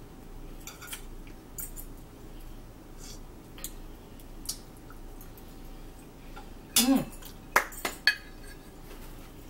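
Metal forks clinking and scraping on dinner plates, with light scattered clicks. Near the end comes a brief, louder sound that falls in pitch, then two sharp smacks.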